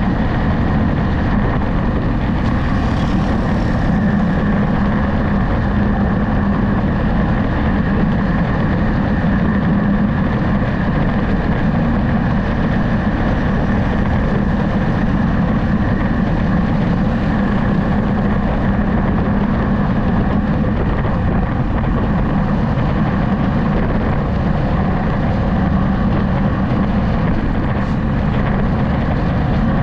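Steady engine hum under wind and road noise from a vehicle cruising on a highway, unchanging throughout, with a brief rise in hiss about three seconds in.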